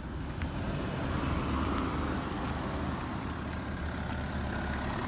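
Steady rumble of a car driving along a road: engine and tyre noise at an even speed.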